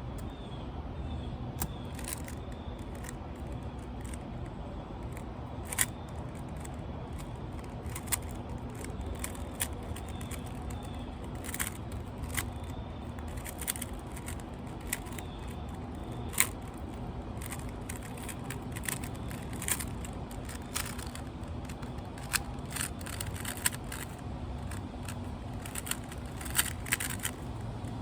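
Rubik's cube being turned fast during a timed solve: irregular plastic clicking and clacking of the turning layers, sometimes in quick clusters, over a low steady hum.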